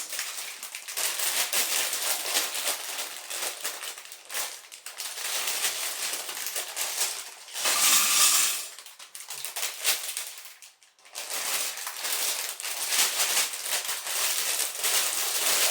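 Thin plastic LEGO parts bag crinkling as it is handled and opened, with small loose plastic bricks rattling; loudest about eight seconds in, with a short pause about three seconds later.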